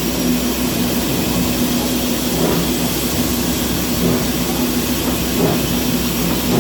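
Steam locomotive heard from its footplate while working: a steady rushing hiss of steam and running gear with a steady low hum underneath.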